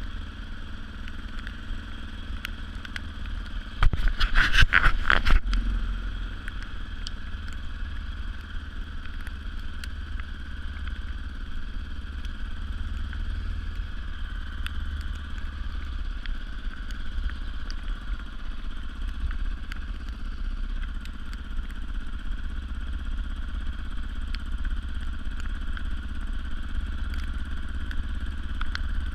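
Yamaha Raptor 700R ATV's single-cylinder four-stroke engine running steadily at low revs while riding, with a loud burst of clattering knocks about four seconds in.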